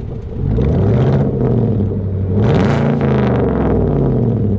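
2018 Chevrolet Silverado 1500's V8 through its true dual exhaust, revved twice from idle. Each rev climbs quickly and then winds down slowly, the slow RPM drop the owner puts down to the factory tune.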